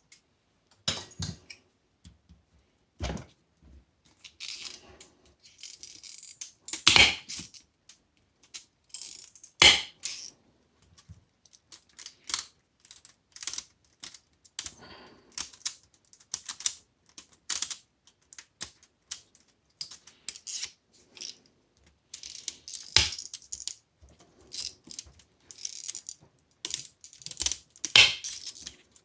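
Cutters snipping through the thick copper windings of a washing machine motor: irregular sharp clicks and snaps, some much louder than others.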